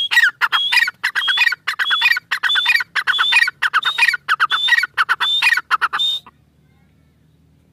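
Grey francolin calling: a loud run of about ten quickly repeated phrases, roughly two a second, each opening on a high note and falling away. The calling stops about six seconds in.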